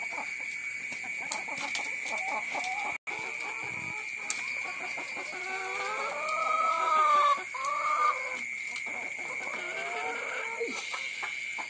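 Caged laying hens clucking. About six seconds in, one hen gives a long, wavering squawk that breaks off and resumes briefly near eight seconds. A steady high-pitched whine runs underneath.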